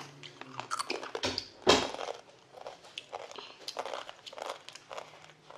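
Crunching and chewing of spicy rolled tortilla chips (Doritos Dinamita): a string of short crisp crunches, the loudest a little under two seconds in.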